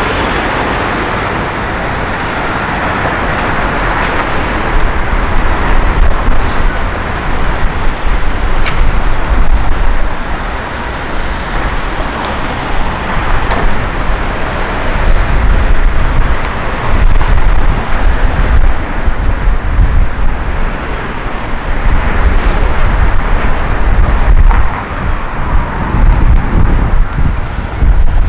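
Road traffic noise on a city street, with wind buffeting the microphone in loud gusts from about five seconds in.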